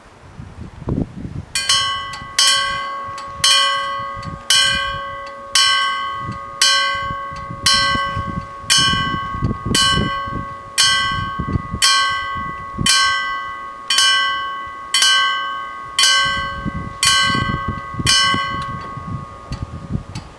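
Level crossing warning bells striking about once a second, each stroke ringing on until the next. They start about a second and a half in and stop near the end, sounding the warning that a train is approaching and the barriers are closing.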